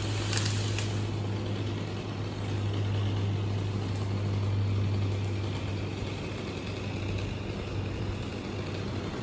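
An engine idling steadily, heard as a low hum that swells a little in the middle and eases off toward the end.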